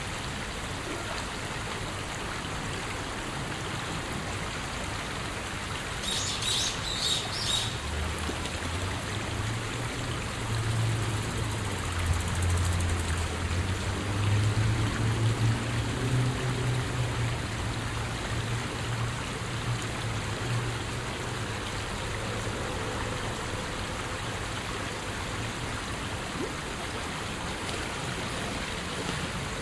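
Steady outdoor hiss, like running water, with a few short high chirps from a small bird about six seconds in. A low hum rises from about eight seconds in and fades away by about twenty seconds.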